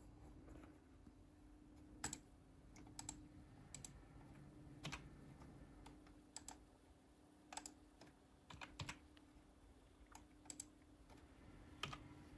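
Key presses on a laptop keyboard entering the hour and minutes in a BIOS time field: about a dozen short, sharp clicks at irregular intervals, some single and some in quick pairs.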